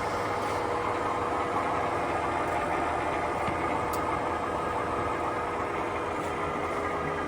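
A 17-inch by 50-inch Cadillac gap bed engine lathe running under power, its carriage fed along the leadscrew through the engaged half nut: a steady gear-train hum with a constant tone. A single faint tick about four seconds in.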